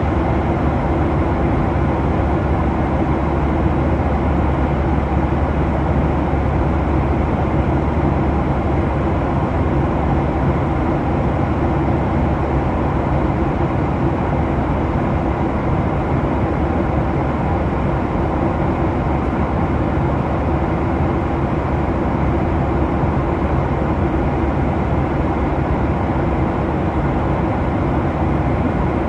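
Steady drone of an airliner cabin in cruise: jet engine and airflow noise heard from inside the plane, even and unchanging, mostly low-pitched with a faint steady hum.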